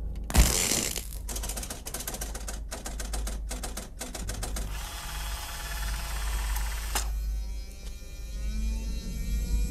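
Sound effects of an ABC Warrior robot powering up: a heavy clank, then a fast run of mechanical clicking and ratcheting for about four seconds, a whirring hiss, and another sharp clank about seven seconds in, followed by a wavering electronic hum.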